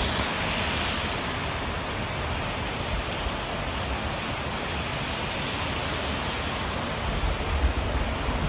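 Heavy rain falling steadily, a constant even hiss, with a low rumble rising near the end.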